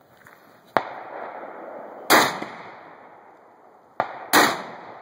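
Sawed-off side-by-side double-barrel 12-gauge shotgun firing Hornady Zombie Max shells. There are two loud blasts, about two seconds in and near the end, each with a ringing tail, and a shorter sharp crack comes before each of them.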